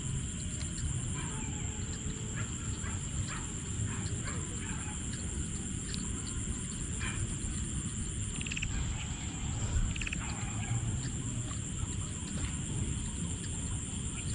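Evening field ambience: a steady high-pitched insect drone with a low rumble underneath, and scattered short animal calls throughout.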